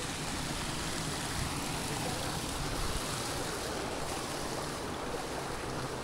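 Wind buffeting the microphone: a steady rushing hiss with an uneven, gusty rumble underneath.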